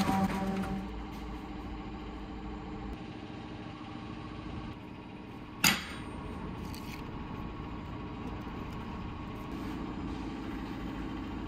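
A steady, low workshop machine hum, broken about halfway through by one sharp metallic clank as the steel knife blank is set down on the steel workbench.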